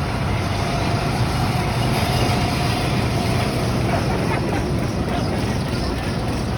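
Go-kart running on a track: a steady engine with rumbling, rushing noise, unchanging throughout.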